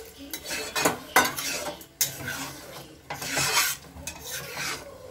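A steel spoon stirring and scraping thick egg tadka around a steel kadai, with irregular scrapes and clinks of metal on metal.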